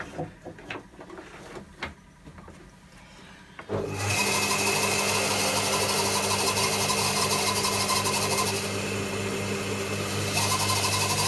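A few light clicks and knocks, then a bandsaw switched on about three and a half seconds in, its motor running with a steady hum. For a couple of seconds near the end the higher part of its sound drops away, then comes back.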